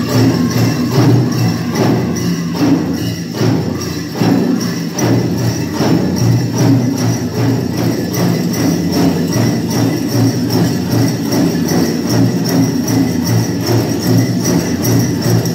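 Powwow drum group singing a grand entry song over a steady, even beat on a big powwow drum, with the bells and jingles on dancers' regalia jangling throughout.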